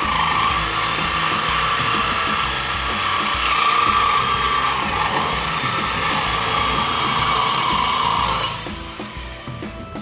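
A power tool running steadily and loudly, a hissing whine, then stopping about eight and a half seconds in.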